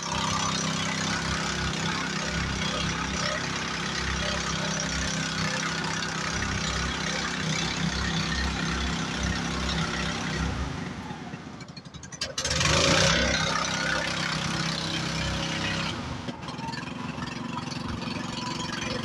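Small engine of a long-tail river motorboat running steadily, with a dense hiss of wind and water over it. It dips briefly about ten seconds in, then a louder rush of noise lasts about a second.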